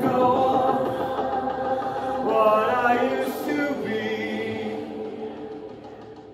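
Music with choir-like voices singing long held notes, rising through a short run of higher notes about halfway through, then fading out near the end.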